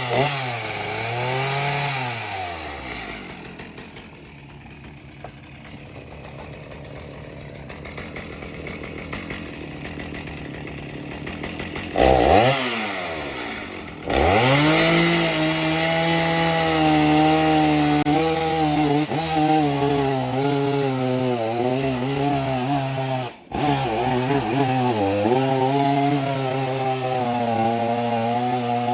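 Chainsaw on an Alaskan chainsaw mill. It revs and falls back, then runs quietly at low speed for several seconds. About halfway through it is revved up again and holds at high speed, its pitch wavering steadily as the bar is pushed through a log to rip it into lumber.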